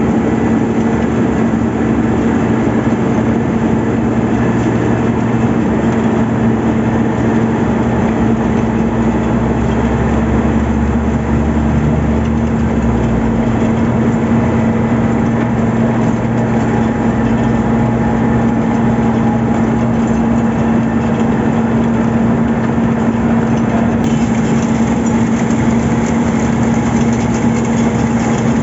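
Heavy diesel road-construction machinery running steadily, a constant loud hum with a strong steady tone; the deepest part of the drone shifts a little about halfway through.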